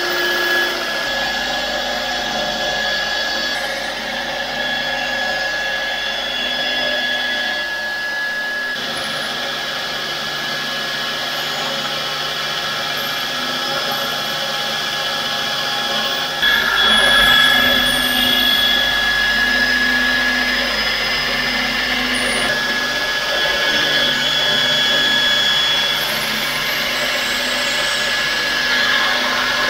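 Belt grinder running, with a steel kitchen-knife blade ground against its abrasive belt to take out a chip in the edge. A steady machine whine and grinding hiss that changes as the blade is pressed on and shifted, louder for a couple of seconds about halfway through.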